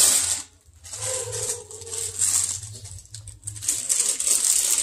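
Clear plastic bags and cellophane packaging crinkling and rustling in irregular bursts as they are handled.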